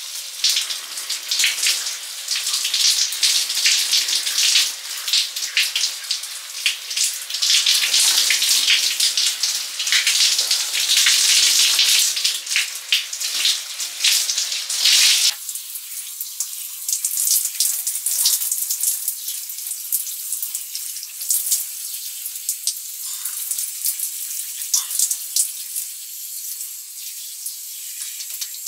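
Water running from a tap and splashing over hair and hands as the hair is rinsed, a steady hiss full of small splashes. About halfway through it changes abruptly to a thinner, lighter splashing.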